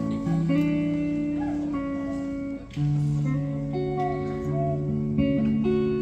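Electric guitar played through an amplifier: sustained chords with the bass notes moving underneath, a brief drop about two and a half seconds in before the next chord rings out.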